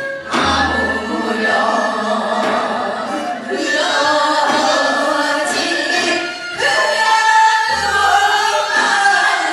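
Several voices singing a Gyeonggi hwimori japga, a fast Korean folk song, together, with a low thump about half a second in and again near the end.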